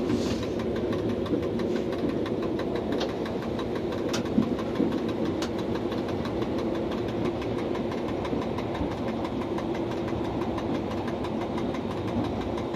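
Steady running noise of an electric commuter train heard from inside its driver's cab while under way: an even rumble with a steady low hum and a few faint clicks.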